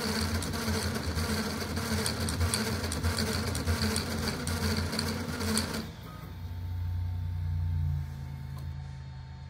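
CoreXY 3D printer printing at high speed: stepper motors and belts make a dense, rapid buzzing and rattling as the toolhead darts about. About six seconds in, the fast motion stops abruptly, and a lower steady hum follows for about two seconds as the bed drops, leaving the quieter hum of the fans.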